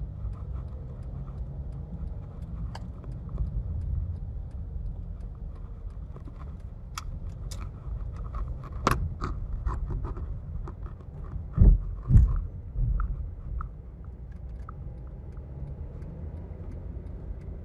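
Car driving in town heard from inside the cabin: a steady low road and engine rumble with light clicking and rattling, and two heavy thumps about half a second apart partway through as the car jolts over something in the road.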